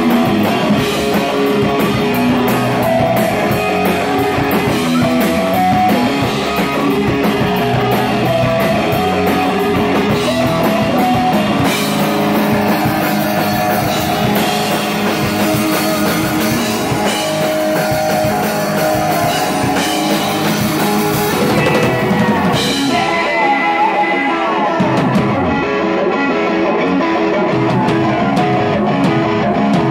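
Live rock trio playing an instrumental passage: electric guitar, bass guitar and drum kit. The bright cymbal wash falls away about two-thirds of the way in while the guitar and drums carry on.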